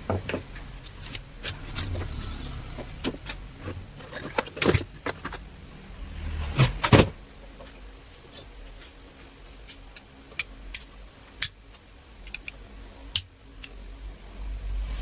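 Irregular metallic clicks and clinks of tools and parts being handled while a pressure washer is taken apart, with a couple of louder knocks about five and seven seconds in.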